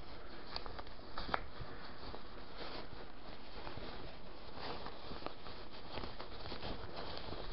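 Fabric rustling and rubbing as a sewn, lined cloth bag is worked right side out by hand through a gap in its seam: soft, scattered crackles over a steady faint hiss.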